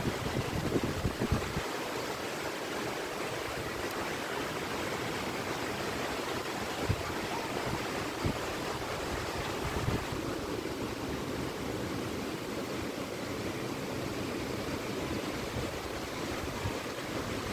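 Steady hiss of monsoon rain falling, with a few brief low thumps scattered through it.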